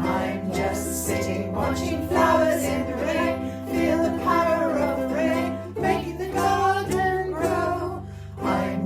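A song: singing over strummed acoustic string instruments, with a bass line stepping between notes and a short break in the playing just after eight seconds.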